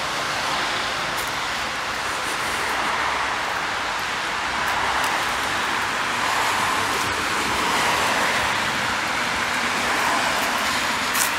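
Steady road traffic noise: a rushing of car tyres on the road that swells and eases gently as vehicles pass, with a short sharp click near the end.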